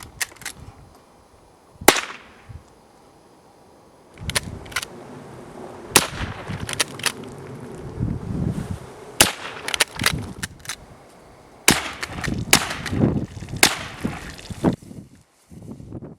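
A Winchester Model 1890 .22 rimfire pump-action rifle being fired: about six sharp shots a few seconds apart, the loudest about two seconds in, with smaller clicks between the shots.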